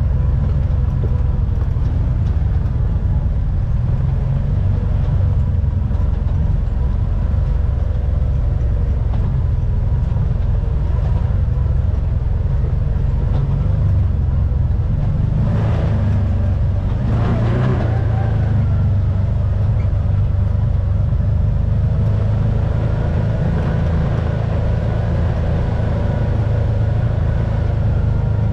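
UTV (side-by-side) engine running steadily under way on a rough dirt track, a continuous low drone, with a brief surge and rise in engine pitch a little past halfway.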